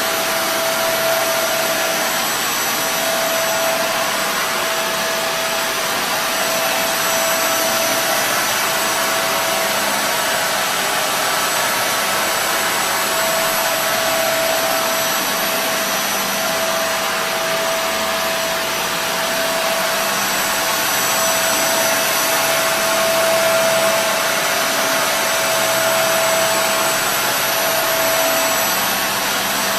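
Kenmore Intuition bagless upright vacuum cleaner running steadily: a continuous rush of air with a steady mid-pitched whine and faint high whistles over it.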